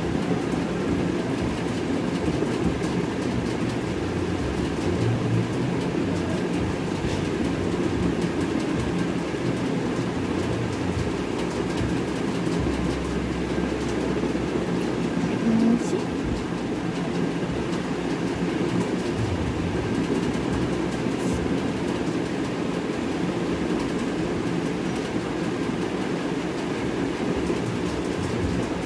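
A steady, even background noise with a deep rushing character and no speech. A low hum sits under it for about three seconds around the middle.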